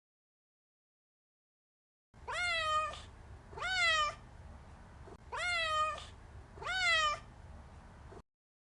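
Domestic cat meowing four times in a row, each meow rising sharply in pitch and then sliding down. The meows begin after about two seconds of silence, and the recording cuts off abruptly near the end.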